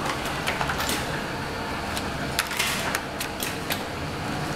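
Clear PVC/PET plastic boxes clicking and crinkling irregularly as they are handled and slid across the feed table, over the steady hum of the hot melt solvent gluing machine running.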